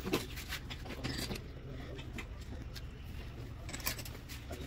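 Light metallic clicks and scrapes of engine parts being handled as a connecting-rod cap is fitted, a few taps just after the start, around one second and near four seconds, over a steady low hum.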